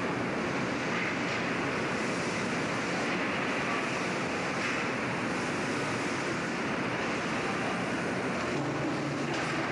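Steady industrial din of a locomotive repair shop floor: a constant rushing noise of machinery at work, even in level, with no distinct strikes or tones.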